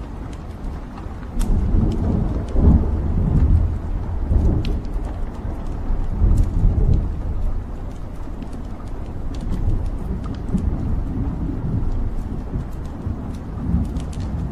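Wood logs burning in a fireplace: a low, rising and falling rumble of the flames with scattered sharp crackles and pops from the burning wood.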